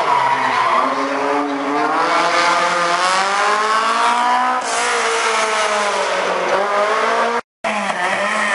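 Rally car's engine revving hard through a tight turn, pitch climbing and dropping as the driver works the throttle and gears, with tyre squeal joining about halfway. The sound cuts out for a moment near the end.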